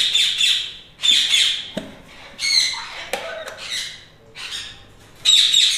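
Parrots squawking in a series of harsh calls with short gaps between them, about five bursts, the loudest near the end.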